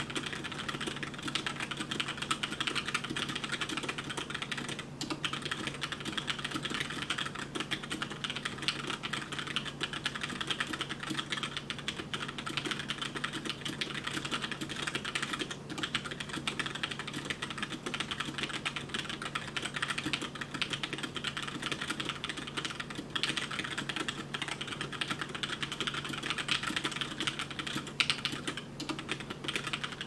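Continuous fast typing on a HyperX Alloy Origins Core tenkeyless mechanical keyboard with HyperX Red linear switches: a dense, unbroken stream of keystroke clacks over a steady low hum.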